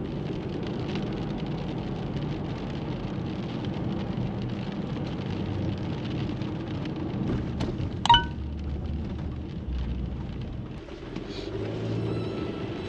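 Steady rain falling, with a low rumble partway through. About eight seconds in there is a single sharp metallic clink that rings briefly.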